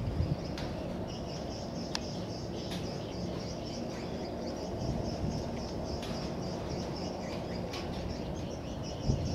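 Outdoor ambience of birds chirping now and then over a steady high-pitched drone and a low rumble, with a couple of low thumps near the start and near the end.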